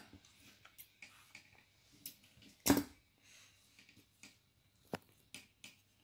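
Metal scissors handled and snipping crochet yarn: a few light clicks, with one louder clack about two and a half seconds in.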